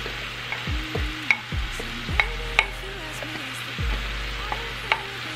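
Browned chicken strips sizzling in a frying pan as diced red onion is tipped in from a bowl, with a steady frying hiss and a few sharp clicks.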